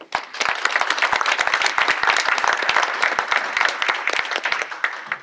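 Audience applauding: dense clapping that swells up about half a second in, holds steady, and dies away near the end.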